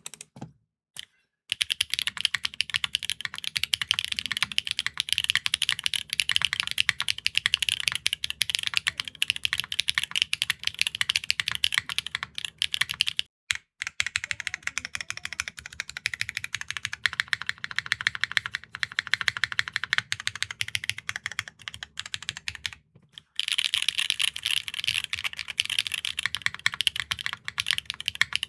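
Fast, continuous typing on custom mechanical keyboards with linear switches: dense, high, clacky keystrokes, opening with the Keygeek T2 switches on a Neo60 CU with an alloy plate. Two brief silences about 13 and 23 seconds in mark the cuts between separate recordings.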